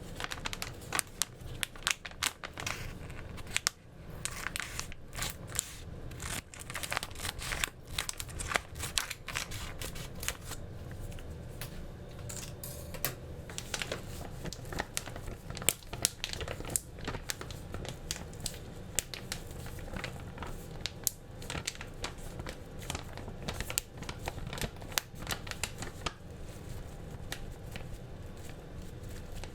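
Close handling noise: irregular sharp clicks, rustling and crinkling, like hands working with packaging or utensils, over a steady low hum.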